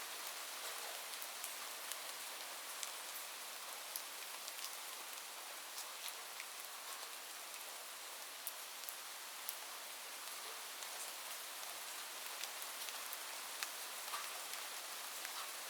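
Light rain falling steadily, a soft even hiss with many small, irregular drop ticks.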